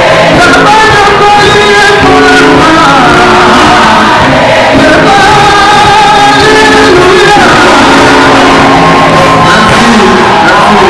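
A man singing a gospel song into a microphone over live band accompaniment, with long held notes.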